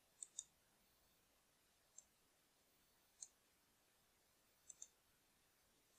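Computer mouse button clicks: six short, sharp clicks, two of them in close pairs near the start and near the end, against near silence.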